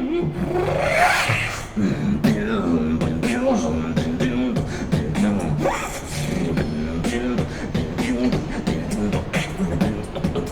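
Human beatboxing with a hummed bass line held under a fast run of vocal clicks and hi-hat hisses, layered at once, and a rising sweep about a second in.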